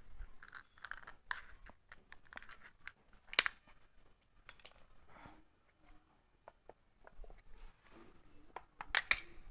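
Scissors cutting through a thin metal drink can: irregular snips with crinkling and scraping of the metal, one sharp snap about three and a half seconds in and a quick run of snips near the end.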